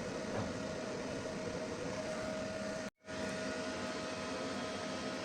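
Steady mechanical hum with a faint constant high tone running through it, cut off for a split second about three seconds in.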